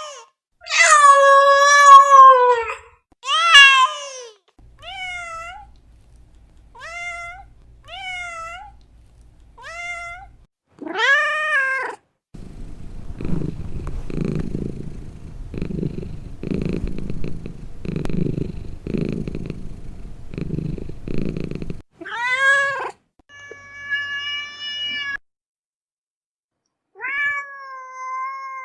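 Domestic cats meowing: a series of separate meows, a long loud one near the start and several small, high kitten-like ones after it. In the middle comes a long stretch of low, pulsing purring, and then more meows near the end.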